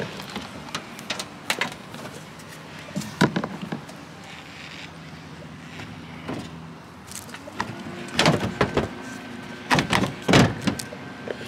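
Irregular knocks and clicks of parts being handled, a few louder ones in the second half, over low steady background noise.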